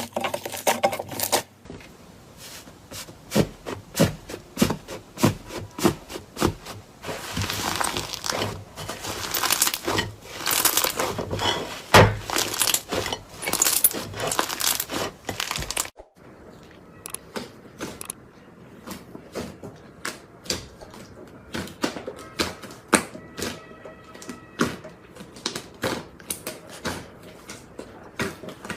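Slime being squeezed and worked by hand, giving a run of sharp clicks, snaps and crackles. The clicks are thickest in the first half and thinner after an abrupt dip about halfway through.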